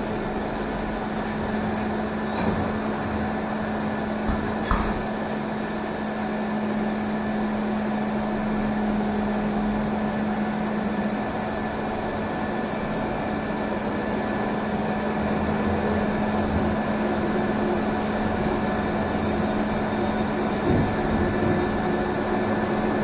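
Trolleybus running, heard from inside the passenger cabin: a steady hum with road and running noise, rising a little after the first few seconds. A few brief high squeaks and a click sound in the first five seconds.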